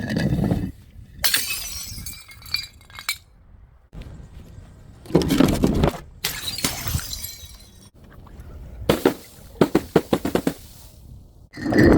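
Glass bottles breaking one after another: a series of shattering crashes with ringing, clinking shards. About nine seconds in comes a quick run of sharp clinks.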